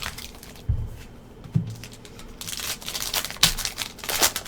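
Trading cards being handled, with a couple of soft knocks, then crinkling and tearing of a trading-card pack wrapper from about halfway through.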